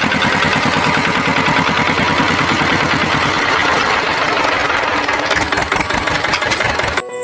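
A motor running with a rapid, even pulse; it starts and cuts off abruptly.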